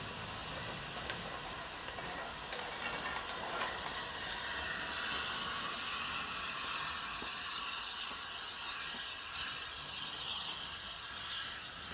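Steam locomotive Flying Scotsman, an LNER A3 Pacific, moving past with its train of coaches: a steady hiss of steam over the running noise of the train, with a few sharp clicks.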